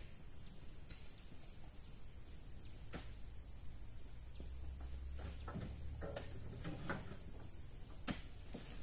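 Steady high-pitched insect drone, with a few scattered knocks and rustles and a low rumble in the middle.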